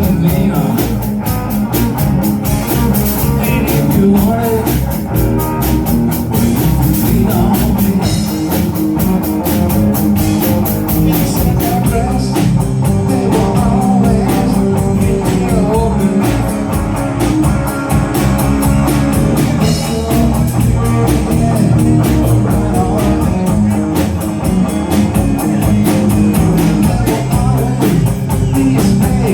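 Live rock band playing an instrumental stretch: guitar over bass and drum kit, with a steady beat of cymbal strokes.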